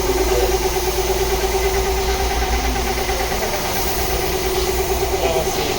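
A motor or engine running steadily, with a constant hum and a low rumble underneath.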